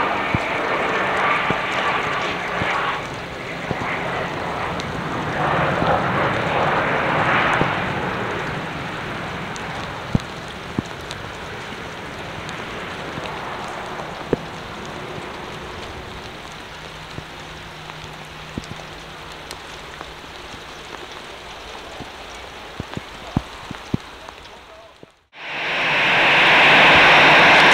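Airliner's jet engines running as it slows after landing in heavy rain, the sound fading gradually over about twenty seconds, with rain and scattered sharp ticks. Near the end the sound cuts out for a moment and comes back as a much louder steady rush.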